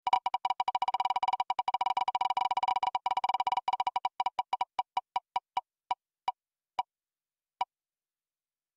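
Spinning prize-wheel tick sound from a web raffle app: short, pitched electronic ticks, one per name segment, that come very fast and then slow steadily as the wheel loses speed, the last tick sounding about three-quarters of the way through as the wheel stops.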